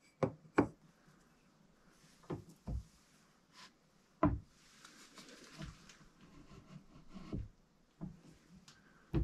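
A series of irregular knocks and clunks as a metal bicycle hub shell and an aluminium bearing press tool are handled and set down on a wooden board under a drill press. The loudest clunk comes about four seconds in, with faint scraping between the knocks.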